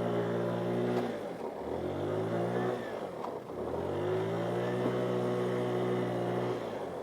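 GY6 50cc four-stroke single-cylinder scooter engine running under throttle. The throttle is eased off about a second in, then opened up twice with rising revs, held, and let off near the end.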